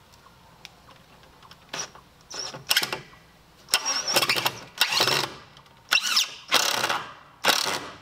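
Cordless drill driving 3-inch screws at an angle (toenailing) through a 2x4 into a wooden beam, in about seven short bursts of the motor with pauses between trigger pulls.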